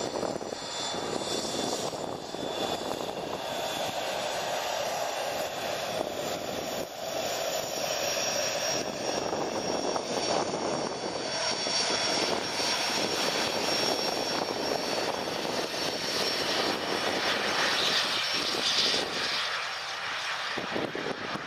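Jet engines of a Boeing 757-200 freighter running, a steady engine noise with high whining tones over it that holds throughout without stopping.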